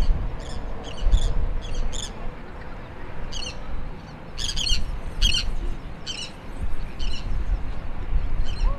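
Birds calling in a scattered series of short, high chirps and squawks over a low rumble of wind on the microphone.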